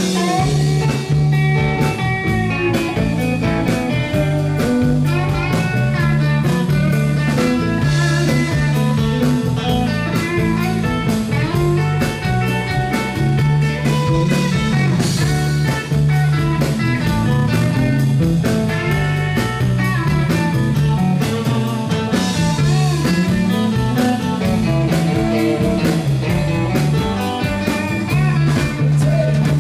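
Live rock band playing an instrumental break, with no singing: electric guitars and a drum kit, and a lead guitar line bending notes over the steady rhythm.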